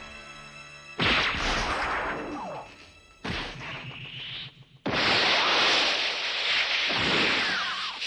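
Animated battle sound effects over a music score: sudden loud crashing hits about a second in and again past three seconds, then a long loud rushing noise through the second half.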